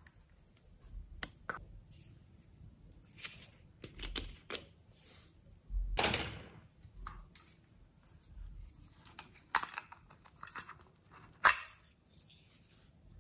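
Small plastic toy containers being handled and opened, with glitter and sprinkles tipped out of them onto a bowl of slime ingredients: irregular plastic clicks and taps and short rustling pours.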